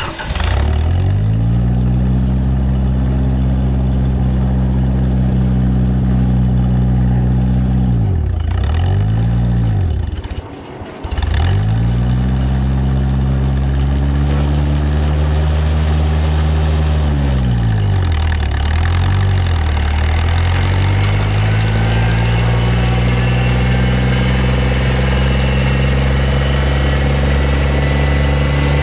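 Morbark wood chipper's flat-four engine running loud. Its speed sags and recovers twice, about 8 seconds in and again about 17 seconds in: the engine bogging under load as wood is fed into the chipper.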